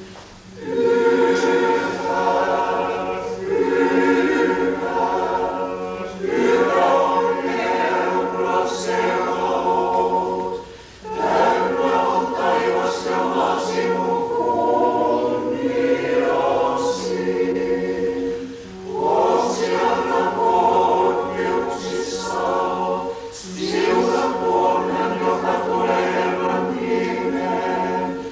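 Children's and youth church choir singing Orthodox liturgical chant a cappella, in phrases separated by brief pauses, over a steady low hum.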